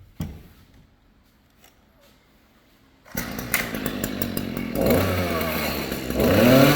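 Stihl string trimmer's small engine catching about three seconds in and running, revved up twice as it is tested after the drive shaft repair. A single knock sounds just before, near the start.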